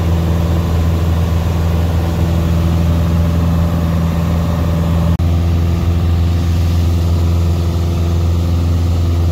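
Piper Cherokee 140's four-cylinder Lycoming engine and propeller in steady cruise, a loud, even drone heard inside the cabin, with a momentary dropout about five seconds in.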